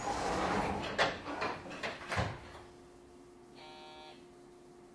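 Pneumatic passenger doors of a JR 113 series electric train working at a station stop: a hiss of air with several knocks as the doors move and shut, then a short buzzer tone about three and a half seconds in, over a steady low hum.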